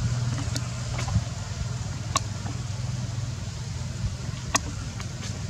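A steady low engine hum, like a motor idling, with several sharp clicks scattered through it, the loudest near the end.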